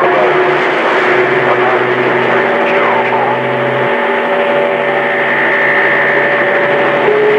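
CB radio speaker hissing with static and several steady whistling tones that come and go, the sound of long-distance skip being received.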